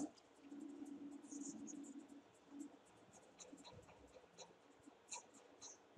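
Near silence: faint room tone, with a faint low hum in the first part and a scatter of small soft ticks later on.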